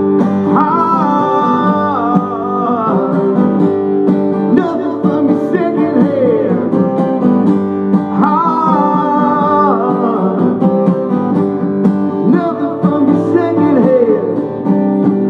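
Acoustic guitar strummed steadily, with a man's voice singing over it in three long phrases.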